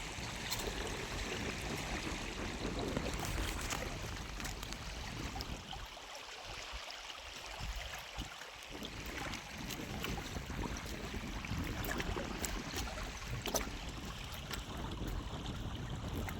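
Steady outdoor rush of wind or water, with a low rumble that drops away for a couple of seconds in the middle, and scattered short clicks and knocks.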